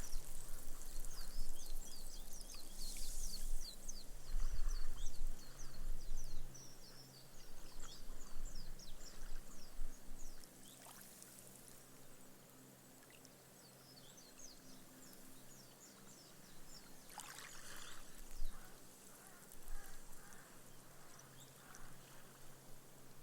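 Small, gentle waves washing up a sand beach and soaking into the sand, the foam fizzing and crackling as it dies away. The wash is louder for the first ten seconds, then quieter, with another small wave coming in about seventeen seconds in; a faint steady low hum lies underneath.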